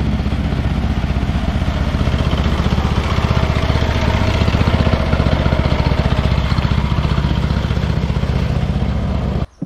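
A small engine running steadily close by, with a fast, even pulse of firing strokes; it cuts off suddenly near the end.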